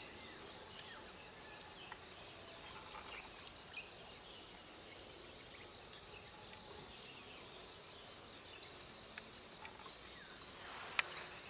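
Steady high-pitched chorus of insects, with a few brief chirps and a single sharp click near the end.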